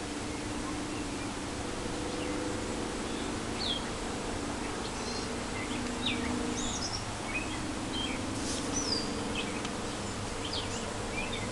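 Outdoor ambience: scattered short bird chirps and whistles over a steady low buzz.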